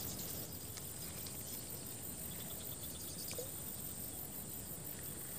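Insects chirring in the background: a steady, high-pitched trill with a faint click or two.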